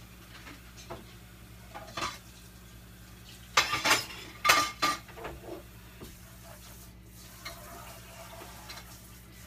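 Metal pots and pans being handled and set down: a few scattered knocks, then a louder clatter about three and a half to five seconds in with a brief metallic ring.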